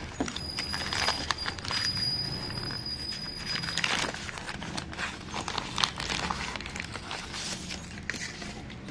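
Knife packaging being handled and opened by hand: irregular rustling, crinkling and small clicks and knocks. A faint steady high whine runs through the first few seconds.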